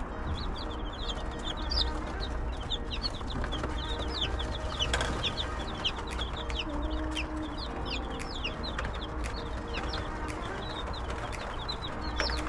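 A flock of newly hatched chicks peeping without pause, a dense chorus of short, high cheeps that overlap one another.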